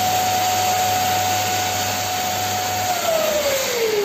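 Wired 1200 W industrial vacuum cleaner running with a steady high whine over a rushing air noise while its nozzle holds a full water bottle by suction. About three seconds in, the whine drops steadily in pitch as the motor slows.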